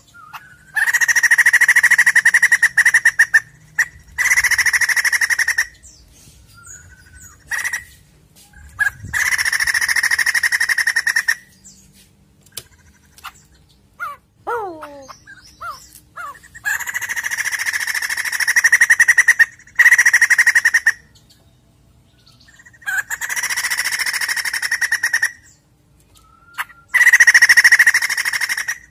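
White-crested laughingthrush in full song, giving loud, harsh, rapid chattering bursts of two to three seconds each, about seven times, with short calls in the gaps. A few falling whistled notes come near the middle.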